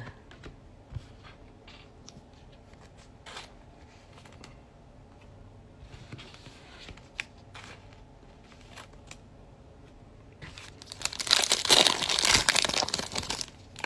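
Foil wrapper of a Panini Select basketball card pack crinkling as it is torn open, loudest about eleven to thirteen seconds in, after several seconds of faint scattered clicks.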